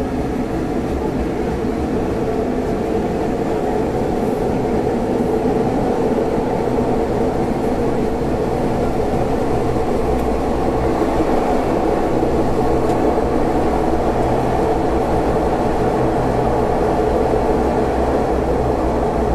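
Athens metro train running between stations, a steady rumble with a constant low hum from the car and track.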